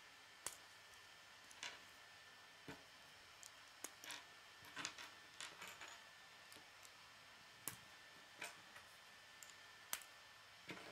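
Faint, irregular clicks of K'nex plastic rods and connectors being snapped together and handled, with a few sharper snaps standing out, such as about half a second in and near the end.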